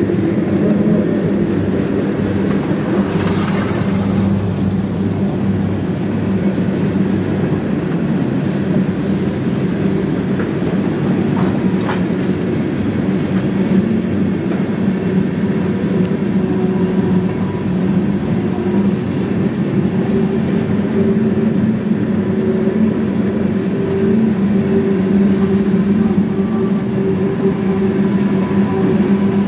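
Freight cars of a CSX train, mostly tank cars with some flatcars, rolling steadily past on the rails with a continuous rumble.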